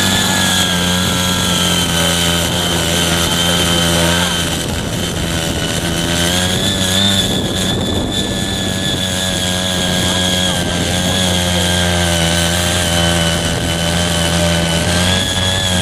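Small petrol engine of a Ching Yee foldable mini power tiller running at steady high speed, its pitch wavering slightly now and then.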